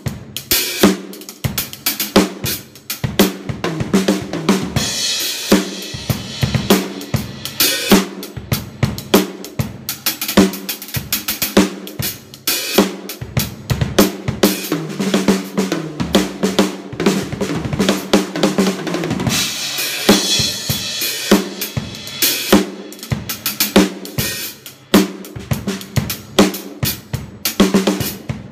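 A drum kit played in a continuous groove for a sound check: snare, bass drum and hi-hat, with cymbal wash swelling twice. The snare is set up for a fat sound.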